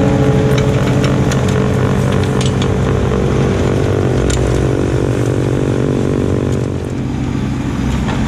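Kubota LX2610 compact tractor's three-cylinder diesel running hard under load, driving a front-mounted snowblower that chews through and throws deep wet snow, with scattered sharp clicks over the engine. The tractor comes close about four seconds in, and the sound dips a little near the end as it moves away.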